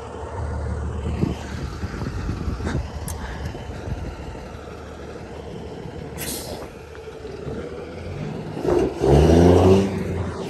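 Heavy diesel truck with a modified exhaust running as it drives along the road. About six seconds in there is a short hiss of air, like an air brake. Near the end the engine note comes in loud and low as the truck draws close, then drops off.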